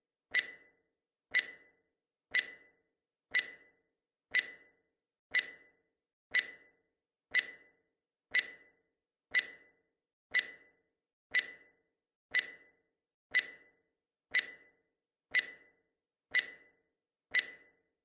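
Countdown timer sound effect: a short, sharp clock-like tick with a brief ringing tail, repeating steadily once a second.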